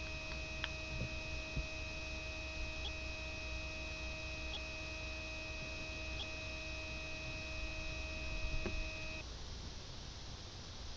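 Sony Xperia tipo phone giving off a steady electronic hum with a high, thin whine, the unwanted noise fault of the phone, with a few faint ticks along the way. The whine cuts off about nine seconds in, leaving a low hum.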